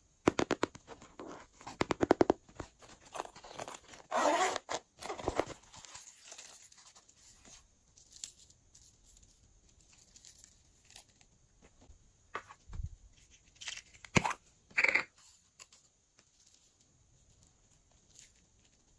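Glossy slime being mixed and worked by hand, giving off rapid sticky clicks and pops. These are dense in the first couple of seconds, come again in louder bursts around four to five seconds, then turn into a few scattered squelches with quieter stretches between.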